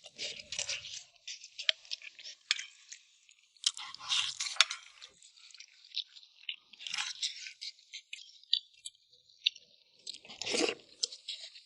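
Close-up eating sounds: people chewing mouthfuls of dry-tossed wontons, with many small irregular wet clicks and smacks.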